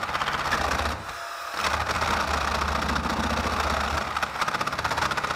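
Cordless drill boring through a timber joist with a 1¼-inch flat wood bit. It runs, drops off briefly about a second in, then runs on steadily.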